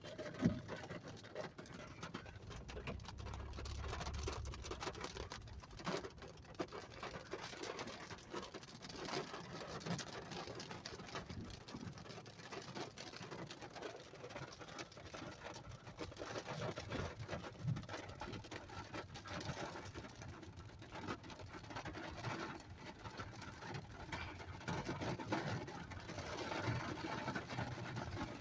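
Rain pattering, a dense irregular crackle of small drop hits.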